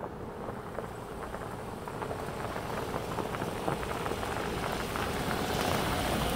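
Subaru Outback wagon rolling slowly along a dirt track, its tyres crunching and crackling over gravel and dry grass, growing steadily louder as it draws near.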